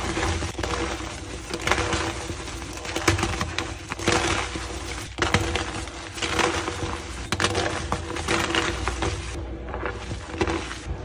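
Blocks of gym chalk being crushed and crumbled: a dense, continuous run of crunchy crackles and snaps, turning duller and less crisp from about nine seconds in.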